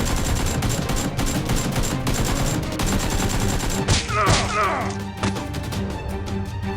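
Rapid bursts of gunfire, shot after shot in quick succession, over background music.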